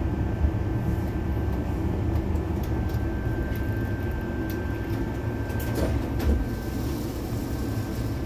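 A tram running slowly on its rails, heard from inside the car: a steady low rumble with a faint steady high whine and a few light clicks.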